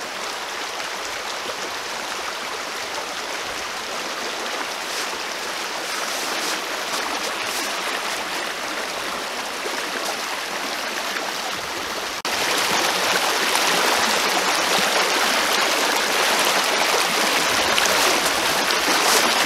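Creek in spring runoff rushing and splashing over and around fallen logs, a steady water rush that jumps suddenly louder about two-thirds of the way through.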